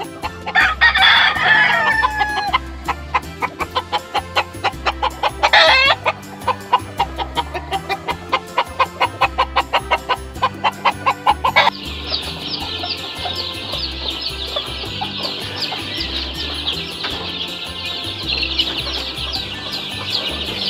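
Gamefowl calling: a rooster crows in the first couple of seconds and chickens cluck, over background music with a steady beat. About twelve seconds in the sound switches suddenly to a dense, high chirping that carries on.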